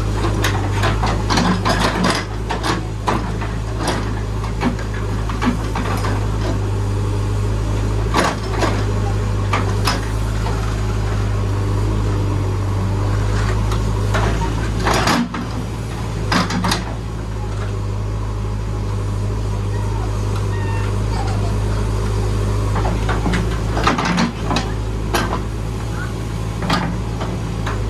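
Backhoe loader's diesel engine running steadily under load, with repeated irregular metallic clanks and knocks from the digging work.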